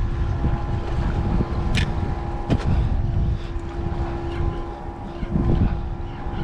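Wind buffeting the microphone on an open fishing boat, a gusty low rumble over a steady faint hum, with a couple of brief sharp clicks near the middle.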